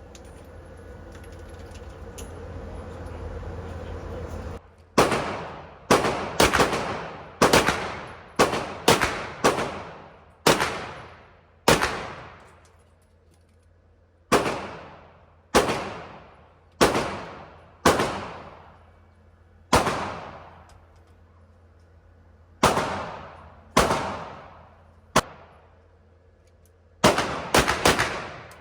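CZ Czechmate competition pistol firing about twenty shots, starting about five seconds in. Some come in quick strings and some singly about a second apart, and each shot rings out with an echoing tail.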